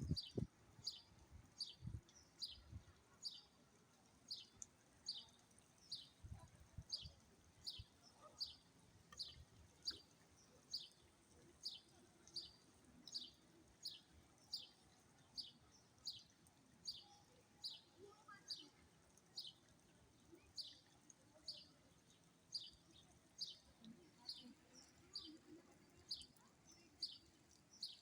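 A small bird calling over and over: a short, high chirp falling in pitch, repeated evenly about three times every two seconds.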